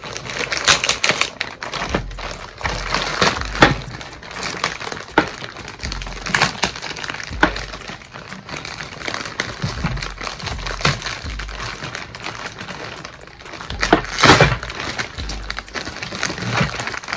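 White plastic mailer bag being torn open and crinkled by hand, in irregular ripping and rustling bursts, with the loudest rip about fourteen seconds in.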